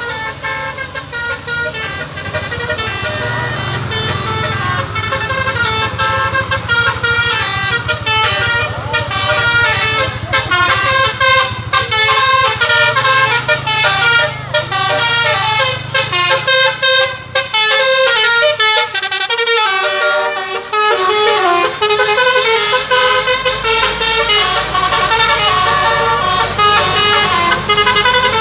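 A bus's multi-tone musical air horn (a 'telolet' horn) playing a fast melody of many short stepping notes, over the steady hum of the bus engine.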